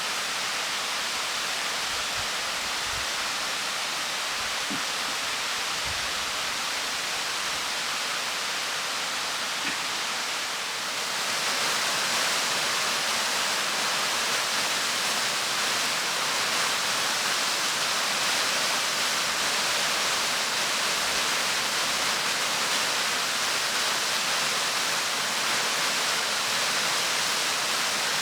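The Clocota waterfall, a fall of about 50 m, making a steady rushing noise of falling water that gets louder about eleven seconds in.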